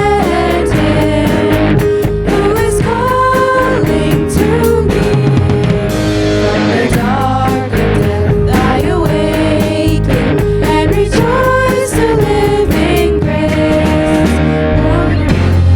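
A song playing: a singing voice carrying a melody over a full instrumental accompaniment.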